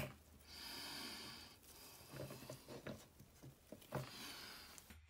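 Faint handling sounds of gloved hands pressing the glass window into the front of a security-camera housing: a click at the start, a soft rustling hiss for about a second, then a few light clicks and taps.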